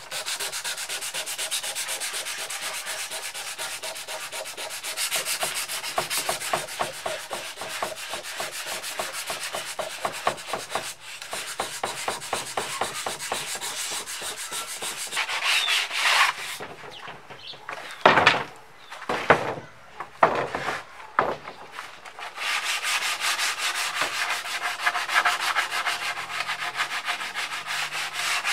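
Sanding on pine boards: quick, even rubbing strokes that hiss steadily. The strokes break off about two-thirds of the way through for a few louder knocks and scrapes, then resume.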